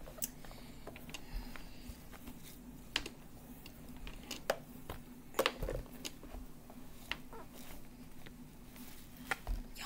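Handling noise from hair being worked by hand: scattered light clicks and rustles at irregular intervals, over a faint low steady hum.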